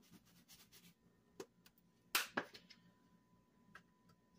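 Quiet handling of a plastic spice shaker while sprinkling paprika: faint shaking at first, then a few light clicks and one louder knock about two seconds in.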